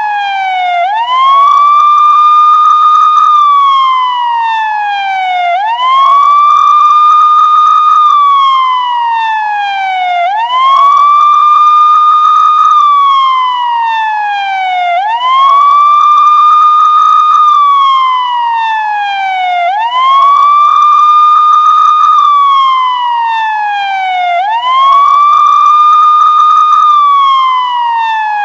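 Police siren sounding a slow wail. Each cycle rises quickly, holds at the top for about two seconds, then falls slowly. The cycle repeats about every four and a half seconds, six times over.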